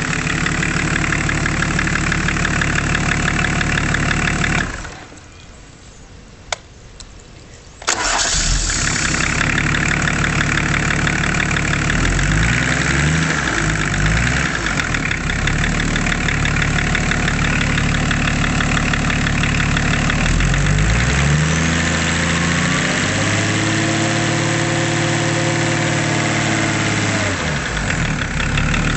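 BMW turbo six-cylinder marine diesel idling. About five seconds in it winds down and stops, then catches again sharply about three seconds later. It is blipped twice, then revved up and held for several seconds before dropping back to idle.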